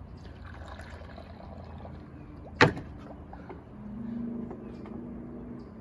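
Coffee poured from a glass carafe into a beer-bong funnel, faint. About two and a half seconds in comes one sharp clack as the glass carafe is set down on a wooden table. A low steady hum follows near the end.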